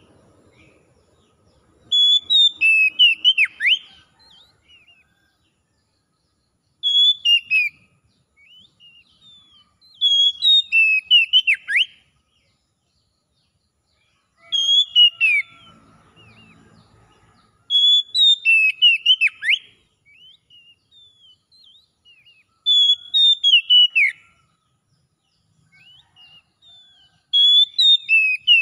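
Oriental magpie-robin (kacer) singing: short phrases of clear whistles sliding downward, seven phrases about every four to five seconds, with faint softer notes between them.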